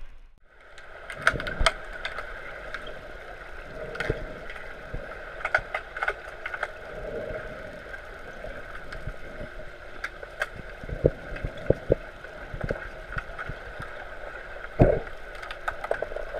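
Underwater hockey play heard underwater from a camera on the pool floor: a steady underwater hum with scattered sharp clicks and knocks, a few louder than the rest, typical of sticks and the puck striking each other and the pool bottom. The sound comes in after a brief dip at the start.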